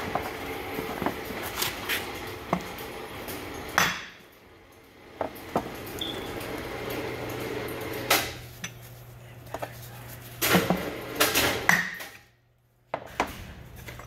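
Irregular metal knocks and clinks as a brass drift block is used to drive a pump bearing cover down into its bearing holder, with a quick cluster of knocks near the end. A steady low hum runs underneath.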